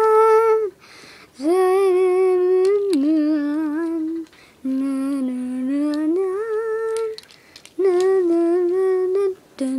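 A voice humming a fire-truck siren, alternating long held high and low tones with short breaks between them, some of them wavering.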